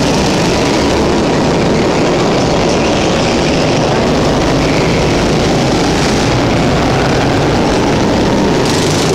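Several 240cc go-kart engines running together around an indoor track, a steady loud din that rises and falls a little as karts pass.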